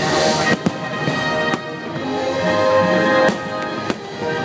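Fireworks bursting with about five sharp bangs, irregularly spaced, over loud orchestral show music. A brief hiss sounds at the very start.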